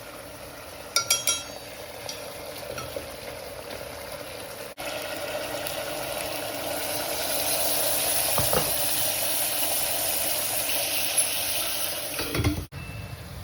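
Pork frying with soybean paste in a pan, sizzling steadily, louder after a brief break about five seconds in. A few metallic clinks of a utensil about a second in.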